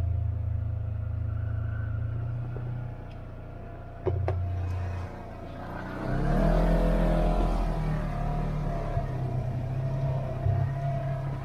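Polaris General side-by-side's engine working under load while climbing a trail obstacle, with a sharp knock about four seconds in. The engine pulls louder from about six seconds in.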